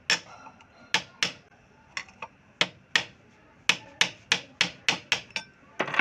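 A hammer striking a steel punch set against the stop-motion clamp at the centre of a sewing machine's handwheel to tighten it: about fifteen sharp metallic taps, spaced out at first and coming faster, about three a second, in the second half.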